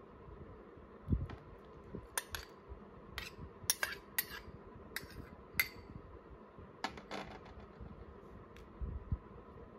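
Metal spoon clinking and scraping against a small ceramic bowl and plate while baked beans are spooned out onto toast: a run of sharp clinks over several seconds, with a soft thump about a second in and another near the end.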